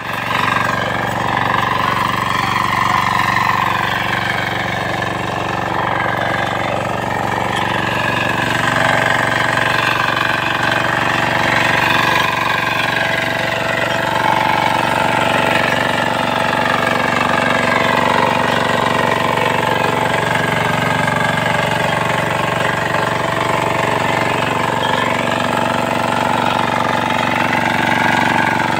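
A 9 hp walk-behind power tiller's air-cooled engine running steadily under load while its rotary tines churn through the soil, its pitch wavering slightly.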